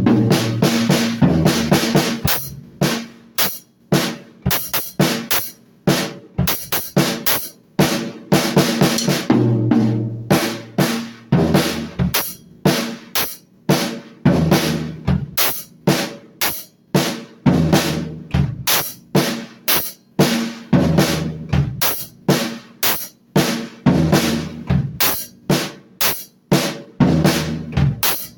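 Drum kit being played: kick drum, snare and cymbals in a fast, continuous beat, with cymbal crashes washing over it at times.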